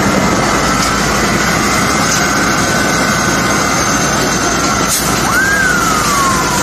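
Fire truck engine running loud and steady while it pumps water to the hoses. About five seconds in, a siren sweeps up quickly and then slowly falls.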